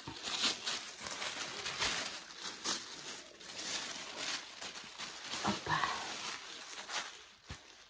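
Tissue paper and bubble wrap rustling and crinkling in irregular handfuls as they are handled and pressed around a wrapped package.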